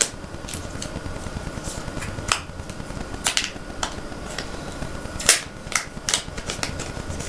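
Scattered light clicks and rustles of a smartphone and its packaging being handled during an unboxing.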